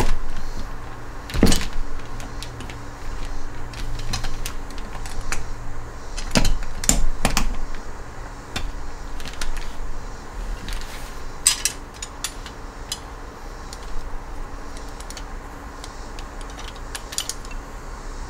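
Metal parts of an NSG370 six-speed manual transmission being handled on a workbench: scattered clinks, knocks and light rattles, with two heavier knocks near the start. A faint steady hum runs underneath.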